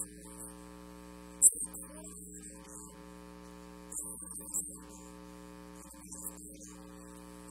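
Steady electrical mains hum and buzz on the audio line, broken by a few sharp, high clicks about one and a half seconds in, around four seconds and near six seconds.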